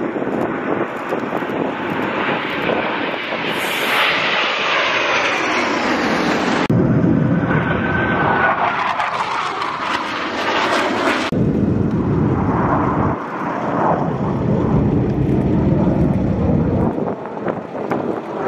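Blue Angels F/A-18 Super Hornet jets flying past, loud jet engine noise with sweeping pitch as the jets pass. The sound changes abruptly a few times where shots are cut together.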